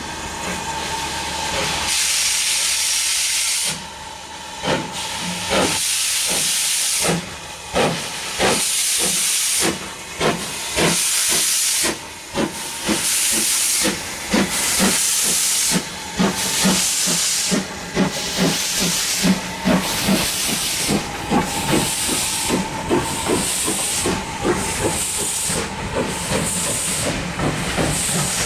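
Ivatt class 2MT 2-6-2 tank steam locomotive pulling away with its train. Its exhaust beats quicken to about two a second, and each one comes with a loud hiss of steam from the open cylinder drain cocks.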